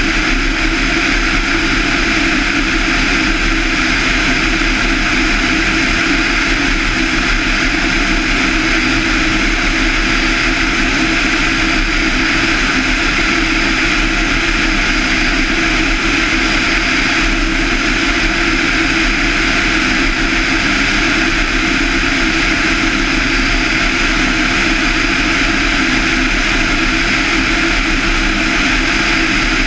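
Van's RV-7's 200 hp Lycoming IO-360 four-cylinder engine and propeller running in flight: a loud, constant drone with no change in pitch.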